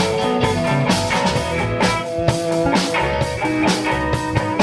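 Rock band playing: guitars over a drum kit keeping a steady beat.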